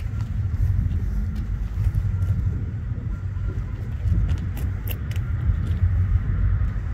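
Pair of EMD GP40-2 diesel locomotives approaching with a steady low rumble. Only the trailing unit's engine is running; the lead unit is shut down.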